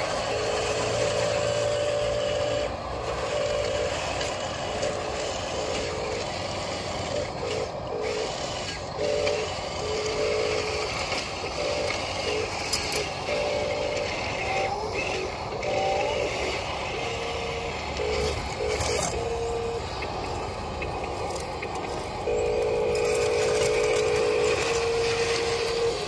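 Small electric drive motors and plastic gearboxes of a radio-controlled toy wheel loader whining in short on-off spurts as it is driven, over a steady mechanical hiss. A longer stretch of whine comes near the end.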